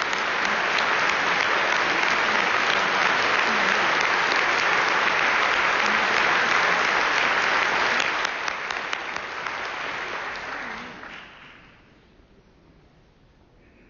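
Audience applauding, a dense patter of many clapping hands that dies away about eleven seconds in.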